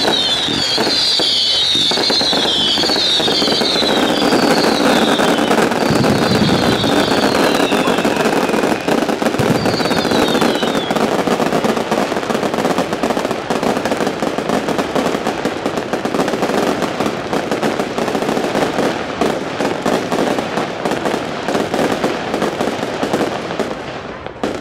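Fireworks display: a dense, continuous crackle of many small bursts and bangs, with repeated high whistles falling in pitch over the first ten seconds or so. It thins out near the end.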